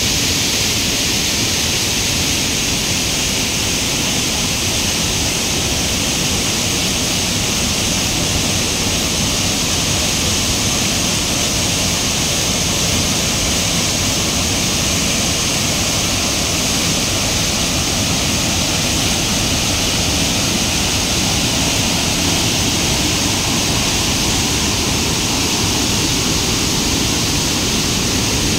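Small waterfall pouring over rocks into a pool: loud, steady rushing and splashing of falling water.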